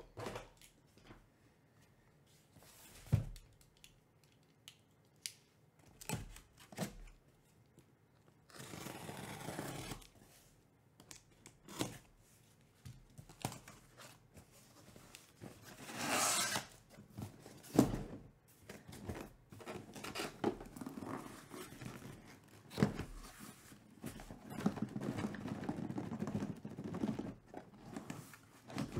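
Cardboard shipping case being opened by hand: scattered knocks and thumps as the box is handled, rustling and scraping of the flaps, and a loud tearing rip of packing tape or cardboard about halfway through. Near the end the flaps rustle and scrape almost continuously as they are folded back.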